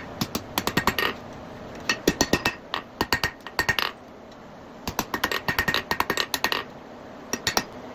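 Hand hammer striking hot steel on an anvil, closing up a folded bar. The blows come in four quick runs of several strikes a second, with short pauses between, and a faint ring after each strike.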